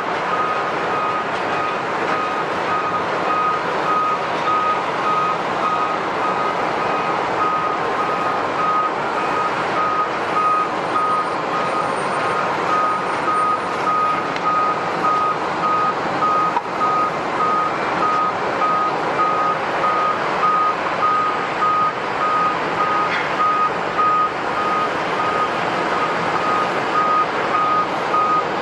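Reversing beeper on an airport ground vehicle, a single high beep repeating evenly about twice a second, over a steady loud rushing background noise.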